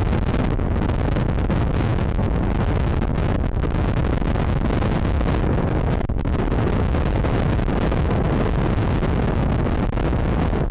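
Wind buffeting the microphone: a steady, heavy low rumble.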